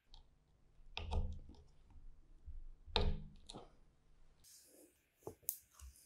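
Hands handling and fitting the generator's metal parts: two sharp knocks about two seconds apart, with lighter clicks between them and again near the end.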